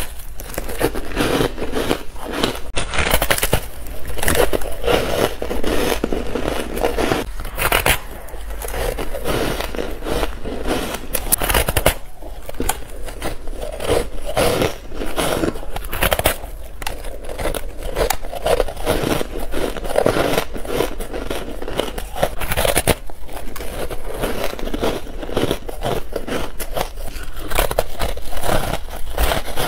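Soft, frost-coated ice being bitten and chewed: a dense, continuous run of crisp crunches and crackles.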